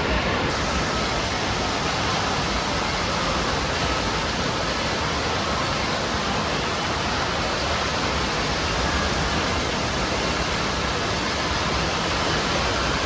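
Steady rush of falling and splashing water from the indoor water park's slides and pools, an even noise with no breaks.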